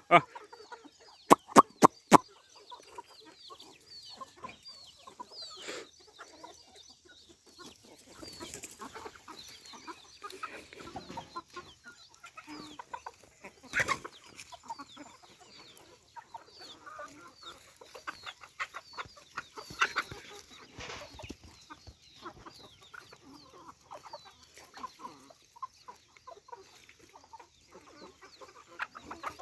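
Desi chickens clucking and calling, with many short high chirps throughout. A quick run of four loud sharp knocks about a second and a half in, and single louder clicks about midway and two thirds of the way through.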